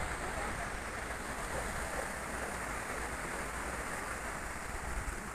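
Steady wash of surf breaking on a sandy beach, with a constant low rumble underneath.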